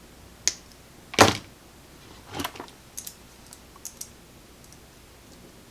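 Scattered light clicks and taps from hand tools and wire being handled at a radio chassis during rewiring, the loudest about a second in.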